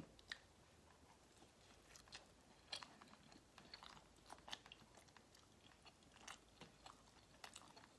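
Faint chewing of pizza, a scatter of soft, irregular crunchy clicks from the mouth.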